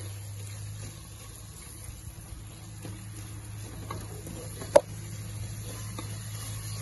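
Wooden spoon stirring and scraping spiced onion-tomato masala as it fries in oil in an aluminium pressure cooker, with a soft sizzle. A few light taps, and one sharp knock about five seconds in.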